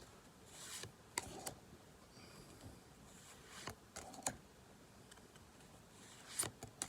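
Faint clicks and soft rustles of Pokémon trading cards being handled and slid one behind another, in a few scattered strokes.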